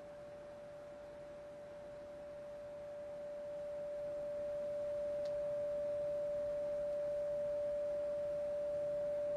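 A steady 585 Hz sine test tone from a loudspeaker driving a duct. It grows clearly louder over the first few seconds and then holds, as the plunger pushes the duct's side-branch Helmholtz resonator out of tune so it no longer cancels the tone.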